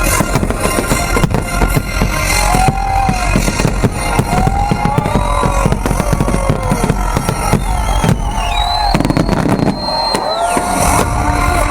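Fireworks display: a rapid, dense barrage of bangs and crackling from bursting shells, over loud music played with the show.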